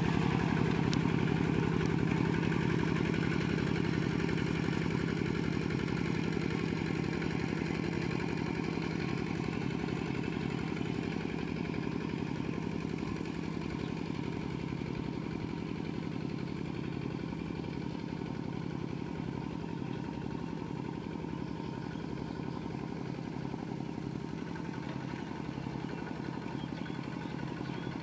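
Kubota RT120 single-cylinder diesel engine on a two-wheel walking tractor, chugging steadily under load as it drags a levelling board through paddy mud. It fades gradually as the tractor moves away.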